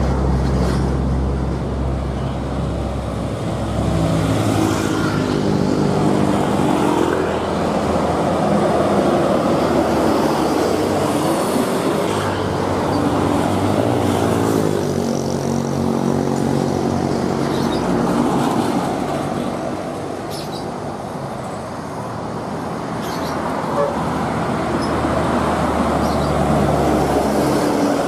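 Road traffic driving past: bus and car engines running, rising and falling in pitch as they pass, with horn toots.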